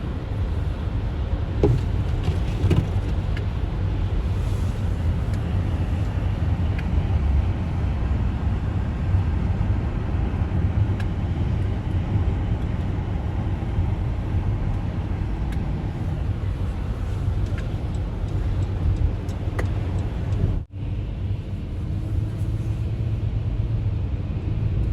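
Car driving at highway speed: steady road and tyre noise over a low engine rumble. The sound cuts out for a split second about twenty seconds in.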